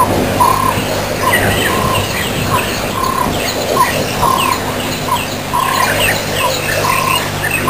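Wild birds calling in African bush: one bird repeats a short call about once a second over many quick, higher chirps from others, with a steady low hum underneath.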